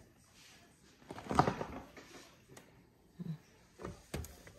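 Indoor handling noises: a brief scraping sound about a second in, then two sharp knocks near the end.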